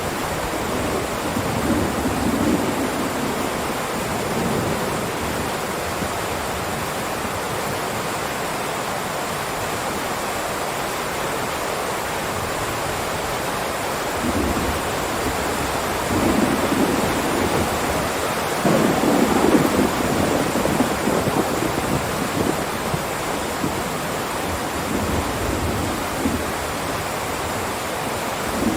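Heavy rain pouring down steadily in a continuous hiss. Several low rumbles swell and fade through it, the loudest about two-thirds of the way in.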